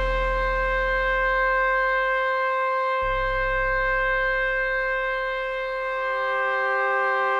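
Live electronic music: a steady synthesizer drone of held tones with a reedy, horn-like colour. A deep bass note sounds again about three seconds in and fades, and new, lower held notes join near the end.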